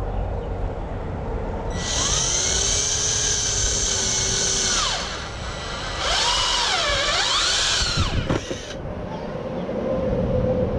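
Ridgid cordless drill driving screws into pallet wood in two runs of about three seconds each, the second starting about six seconds in. Its motor whine rises and falls in pitch, wavering up and down through the second run before dropping off.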